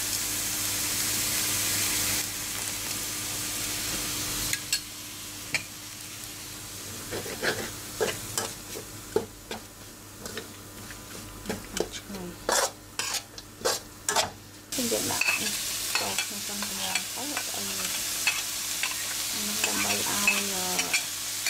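Food sizzling in a hot steel wok while a metal spatula stirs a fish mixture. The sizzle drops about four seconds in. A run of sharp scrapes and knocks of the spatula against the wok follows, heaviest in the middle, and the sizzle builds again towards the end.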